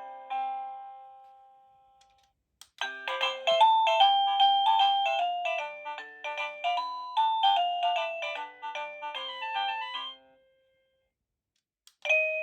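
Avantek wireless doorbell chime playing its tunes. The last note of one tune dies away. After a short click about two and a half seconds in, a full multi-note melody plays for about seven seconds. Another tune starts near the end.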